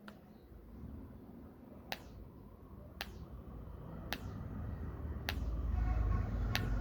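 A series of sharp clicks, about one a second, each with a brief falling ring after it, over a low background rumble that grows louder near the end.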